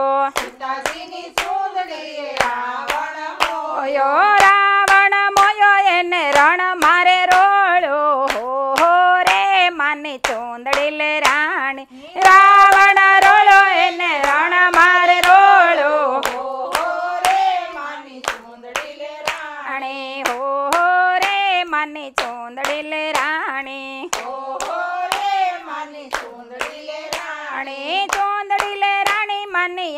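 A group of women singing a Gujarati garba devotional song together, with steady hand clapping in time to the beat. The singing grows louder about twelve seconds in.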